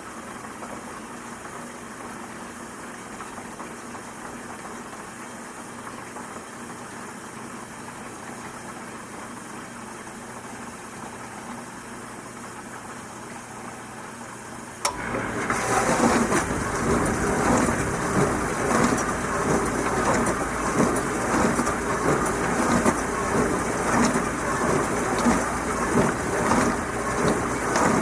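Dishwasher running: a low steady hum, then about halfway through water starts spraying loudly inside the tub with a fast churning, splashing rush as the wash cycle gets going.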